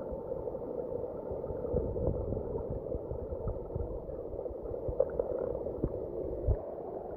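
Creek water flowing over rocks, heard with the microphone underwater: a steady, muffled rush with no high end. A few short low thumps stand out, around two seconds in and again after five seconds.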